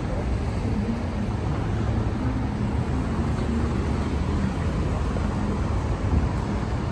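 Steady low rumble of city traffic, cars running along a busy downtown road, with a faint engine hum.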